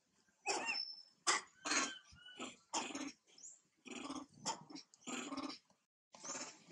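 Macaques making a string of short raspy grunts and calls, about eight in quick succession, with a brief high squeak about half a second in.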